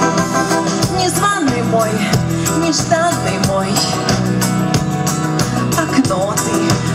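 A live pop band playing through a stage sound system: drums keeping a steady beat under electric guitar and keyboards.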